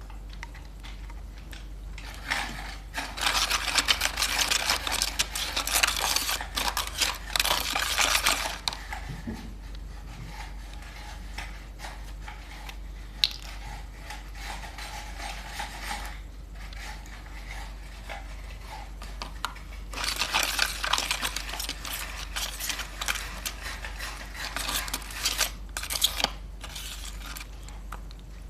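Clear glitter slime being stirred and worked in a bowl: two long stretches of wet, crackly scraping with a few sharp clicks.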